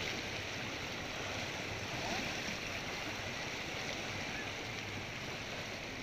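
Fast-flowing river in flood rushing and churning past the bank: a steady noise of turbulent water.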